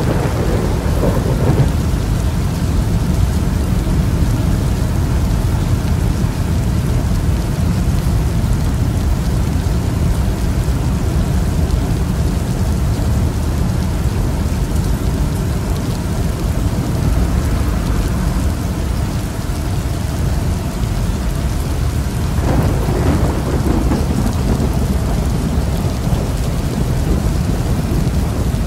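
Thunderstorm: steady heavy rain with continuous low rumbling thunder, swelling louder right at the start and again about 22 seconds in.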